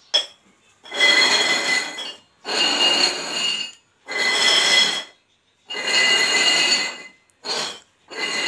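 Upturned stainless steel tumblers slid and shuffled across a hard floor: a scraping rasp with a metallic ring. It comes in four stretches of about a second each, then two shorter ones, after a sharp clink at the start.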